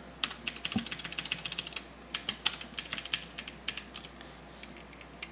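Typing on a computer keyboard: a quick run of keystrokes for about two seconds, then scattered key presses that thin out and stop near the end.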